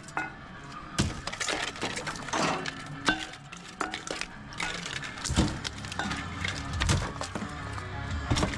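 Scrap transformers being broken apart and handled: an irregular run of sharp metal knocks, cracks and clinks. A low steady hum comes in about five seconds in.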